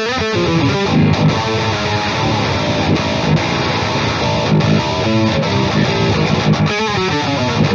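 Strandberg Boden 7 True Temperament seven-string electric guitar with Fishman Fluence pickups, playing a heavy metal rhythm riff through a high-gain distorted tone.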